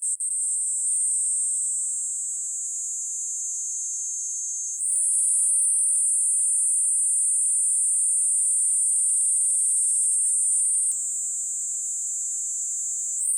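Yaeyama niinii cicada singing a continuous high-pitched buzz. It gets louder about five seconds in, falls back about eleven seconds in, and swells again near the end.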